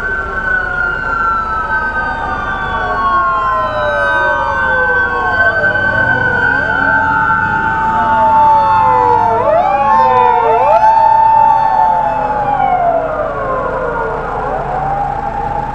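Several Super GT racing cars braking hard into a chicane, their engine notes overlapping. Each note holds high, slides down, and jumps back up with each downshift.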